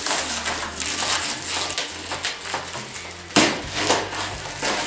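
Black plastic wrapping crinkling and rustling as it is handled and pulled from a long cardboard parcel, with the box scraping and knocking. A few louder sharp crackles come about three and a half and four seconds in.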